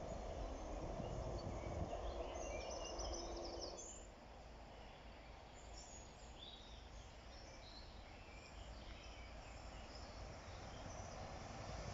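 Outdoor background noise with small birds chirping now and then. The steady low background drops a little about four seconds in and starts to grow louder again near the end.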